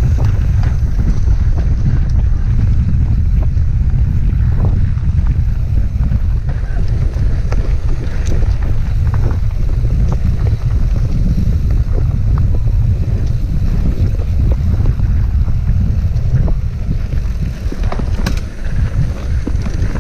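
Wind buffeting the microphone of a camera on a mountain bike riding downhill on a dry, rocky dirt trail: a steady low rumble, with scattered clicks and rattles from the bike and tyres over the rough ground.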